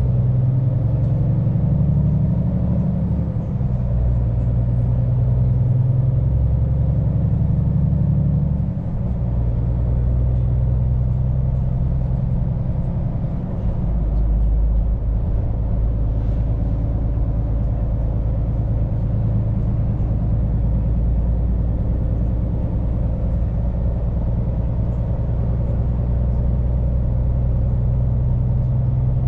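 Scania P410 truck's diesel engine running steadily while driving, with a deep engine hum. The engine note changes about a third of the way in and again about halfway through.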